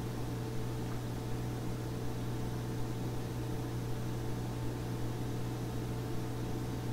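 Steady low electrical hum with a faint even hiss: room tone with no other event.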